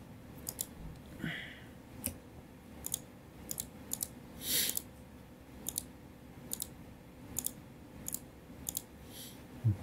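Computer mouse clicking, a dozen or so sharp single clicks at an uneven pace of roughly one every half second to a second, as edges are picked one after another.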